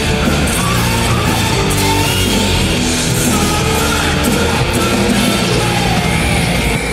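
Loud heavy rock music playing steadily, a dense full-band sound.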